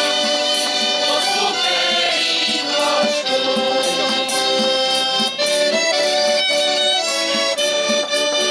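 Slovak folk ensemble performing: a choir singing with accordion and fiddle accompaniment, playing a steady rhythmic folk tune.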